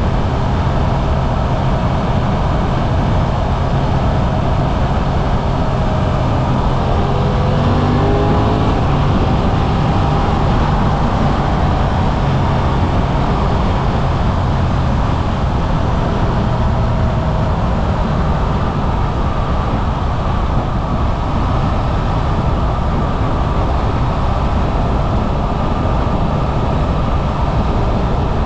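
Suzuki V-Strom 800RE's parallel-twin engine running as the bike is ridden, heard from the handlebars with wind rush. About seven seconds in the revs climb, then the engine settles back to a steady note.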